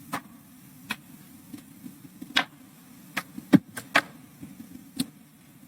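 Scattered short clicks and light knocks, about seven in five seconds at no even rhythm, over a low steady hum.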